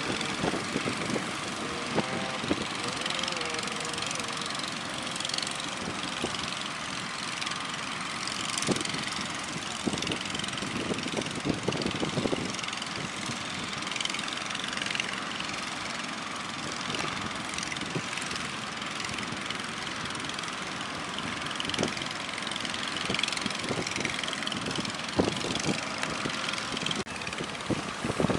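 Big waves breaking and rushing, a steady noise with scattered knocks, and an engine running underneath.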